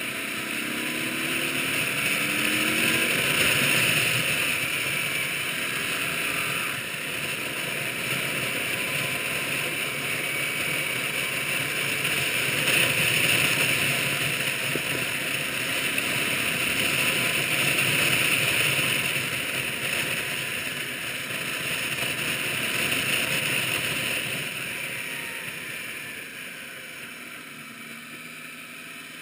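Onboard sound of a touring motorcycle being ridden: steady wind rush over the microphone with the engine running underneath, its pitch rising briefly in the first few seconds. The loudness swells and eases with the bends and drops off near the end.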